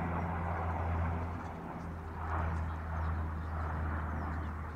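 Small boat engine running steadily, a low even hum with a rushing noise over it that swells and fades.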